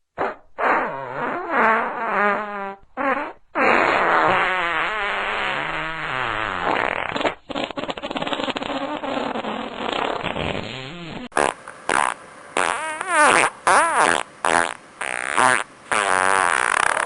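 A string of fart sounds with a wavering pitch: a few short ones, then one long drawn-out one lasting several seconds, then, from about two-thirds of the way in, a series of short ones in quick succession.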